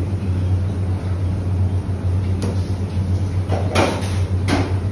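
A steady low hum, with a few short clicks and knocks from about two and a half seconds in, as spice powder is spooned onto raw chicken in a steel pan.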